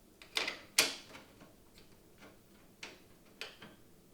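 A computer case being handled and shifted on a work surface: a few separate sharp clicks and knocks, the loudest a little under a second in.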